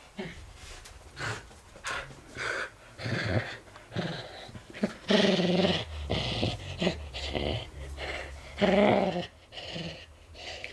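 Whippet growling in play while tugging on a fabric toy, in a string of short growls, the loudest about halfway through and again near the end.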